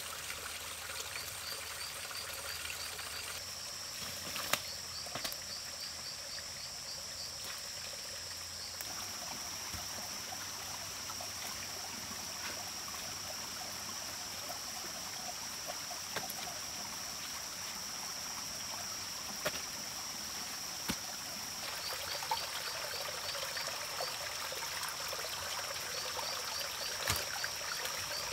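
Small forest stream and waterfall trickling over rocks, a steady splashing hiss. Over it a steady high-pitched buzz, with runs of quick high chirps near the start and near the end, and a few sharp clicks.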